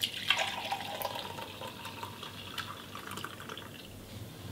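Filtered green tea being poured into a glass mug: a soft, steady splashing fill that tapers off near the end.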